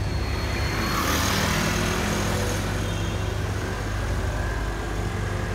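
Street traffic: vehicle engines idling steadily in stopped traffic, with a brief swell of rushing noise about a second in.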